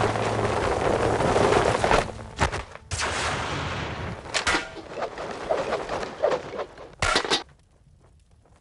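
Fire effects of flames bursting up: a rush of noise with several sharp bangs, dying down about seven and a half seconds in.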